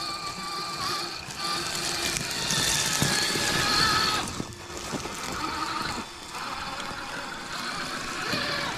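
Axial SCX6 Honcho RC crawler's electric motor and gear drivetrain whining as it drives over rocks, the pitch rising and falling with the throttle.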